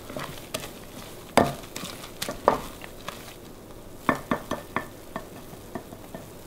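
Wooden spoon stirring wet grated-zucchini batter in a ceramic bowl, with irregular clicks and knocks of the spoon against the bowl and a quick run of them about four seconds in.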